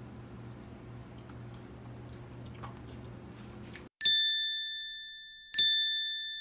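Two bright ding chimes about a second and a half apart, each struck sharply and then ringing and fading out slowly, as an outro sound effect. Before them there is a low steady room hum with a few faint clicks.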